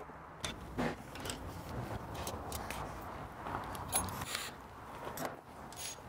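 Irregular clicks, taps and clatter of hand tools and plastic body panels while a Vespa GTS's handlebar covers are unscrewed and taken off.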